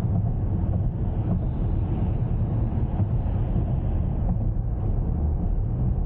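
Steady low road and tyre rumble inside the cabin of a Lincoln Aviator SUV while it is driving.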